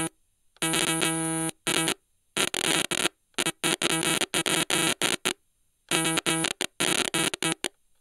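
Stylophone's buzzy electronic tone glitching: it stutters and cuts in and out in rapid chopped bursts, with a few short dead silences between clusters.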